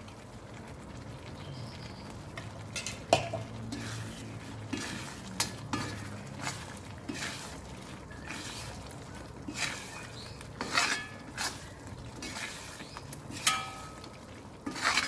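A steel spoon stirs thick lemon pickle in a cast-iron kadai, scraping and clinking against the pan at irregular intervals, over a faint steady sizzle of hot oil.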